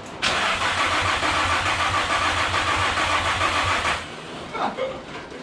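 Starter cranking a RevUp VQ35 V6 steadily for about four seconds, stopping suddenly, without the engine firing. It is a crank-no-start, which the owner suspects is a fuel problem.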